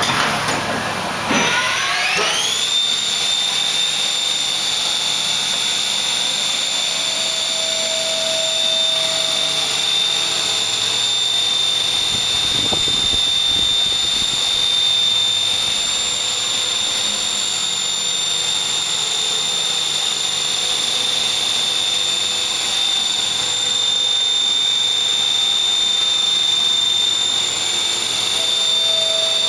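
Spindle of a 1998 Supermax Rebel-8 CNC vertical machining center spinning up, its whine rising quickly a second or so in, then running at a steady high speed with one constant high-pitched whine.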